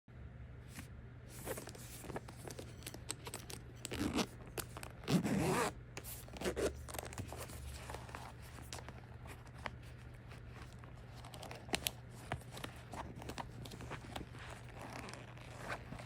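Packaging and accessories being handled during an unboxing: zip-like scrapes, tearing rustles and small clicks, loudest for a couple of seconds about four seconds in, over a steady low hum.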